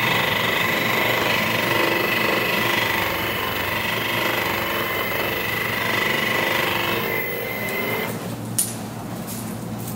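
Percussive massage gun running steadily against a patient's back to loosen the muscles before an adjustment; it stops about eight seconds in, followed shortly after by a sharp click.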